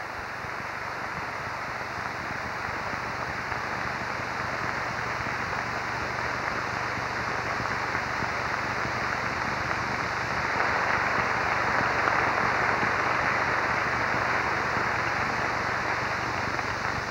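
Large audience applauding, the clapping swelling to its loudest about ten seconds in and then easing off slightly.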